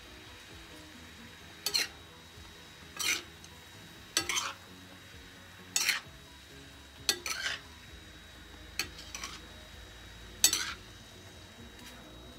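Metal spoon and fork scraping and clinking against a stainless frying pan while noodles and vegetables are tossed: about seven short strokes, a second or so apart, the loudest near the end.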